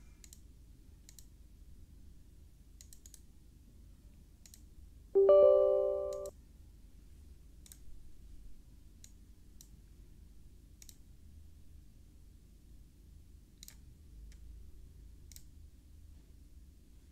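Faint computer mouse clicks every second or so. About five seconds in comes a loud electronic notification chime, several tones held together for about a second and then cut off.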